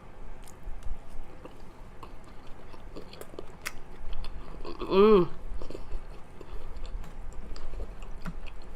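A person chewing a dumpling close to the microphone, with scattered soft wet clicks and smacks. About five seconds in she hums a short "mmm" of enjoyment that rises and falls in pitch.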